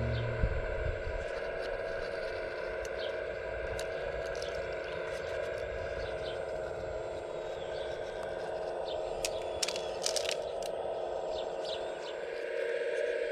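Small electric hydraulic pump of an RC model excavator whining steadily, with scattered clicks and scrapes of stones and metal, a quick cluster of them near the end. A low rumble fades out about a second in.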